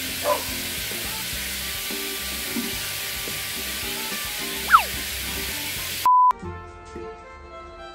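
Hiss of a hand-held shower spraying water under soft background music, with a brief falling whistle-like squeak midway. Near the end the sound cuts out for a moment and a short, loud, steady test-tone beep follows, then quieter music.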